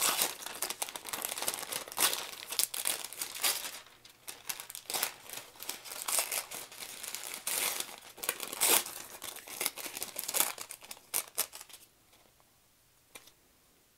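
Parchment paper being torn away along a line of machine stitching, in a run of short rips and crinkles that stops about two seconds before the end.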